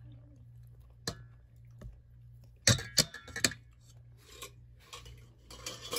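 Kitchenware clinking against a stainless steel mixing bowl as kaong is tipped in from its jar: a single tap about a second in, then three sharper clinks close together around the middle, which are the loudest, and faint scraping near the end.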